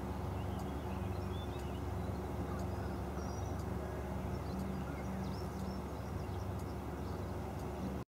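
Steady low mechanical hum, like a distant motor, with faint high bird chirps and a few light ticks above it.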